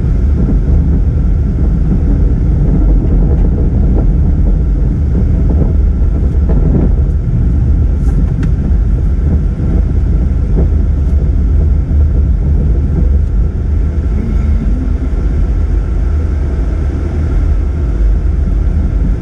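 A car driving slowly, heard from inside the cabin: a steady low rumble of engine and road noise, with a few faint clicks about eight seconds in.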